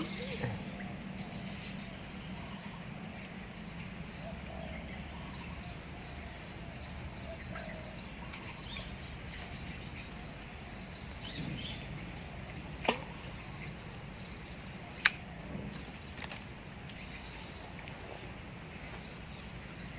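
Riverside outdoor ambience: a steady background hiss with scattered high bird chirps, and two sharp clicks a couple of seconds apart in the second half.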